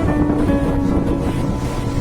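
Background music holding a long note that fades about halfway through, over a steady rush of sea surf and wind on the microphone.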